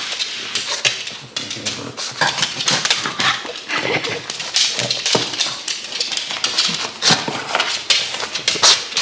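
A dog close to the microphone making irregular, scratchy snuffling and rustling noises.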